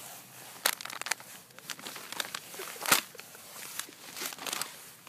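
Plastic groundbait packets being handled and laid down: crinkling and rustling, with sharper knocks about a second in and again about three seconds in.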